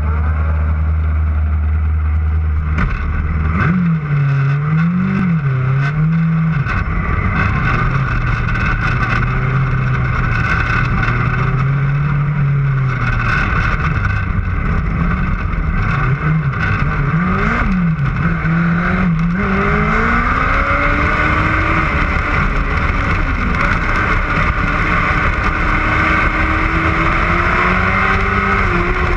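A small open-wheel dirt-track race car's engine heard close from a camera mounted on the car. It gives a low steady hum for the first few seconds, then short up-and-down blips of revs as the car rolls. Later the pitch climbs steadily as the car picks up speed.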